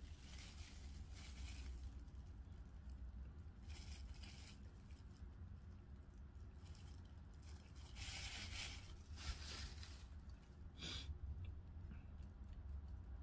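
Thin plastic bag and wrapping crinkling and rustling in several short bursts as a rice cake is unwrapped by hand, over a steady low hum.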